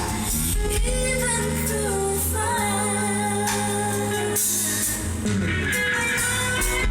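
Pop music from a DJ mix: a sung melody over guitar, bass and drums.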